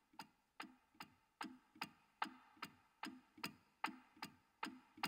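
Steady clock-like ticking, about two and a half ticks a second, faint and even: the ticking intro of a music track.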